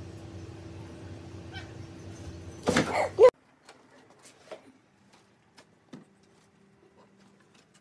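A cat gives one short, loud meow-like call that rises in pitch at the end, over a steady low hum. The hum cuts off suddenly just after the call, leaving only faint scattered taps.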